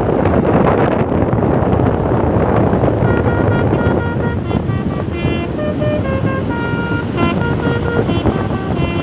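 Loud rushing noise of a passing bus with wind on the microphone; about three seconds in, a Basuri V3 telolet bus horn starts playing a quick melody of stepped tones, changing note several times a second.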